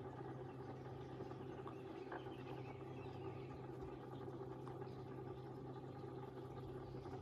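Koi pond pump and filtration system running: a steady low hum, with a couple of faint ticks about two seconds in.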